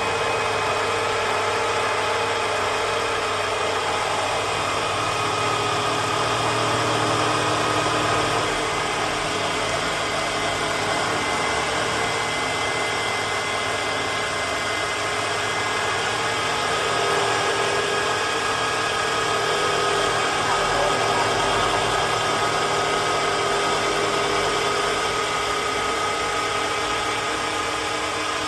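CNC wood turning lathe running steadily: a continuous machine hum with several steady whining tones over a noisy haze, swelling slightly in loudness a few times.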